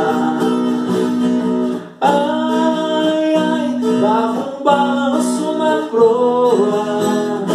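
Viola caipira, the ten-string Brazilian folk guitar, strummed and picked in a country (sertanejo) song, with a man singing over it. The playing breaks off briefly about two seconds in, then resumes.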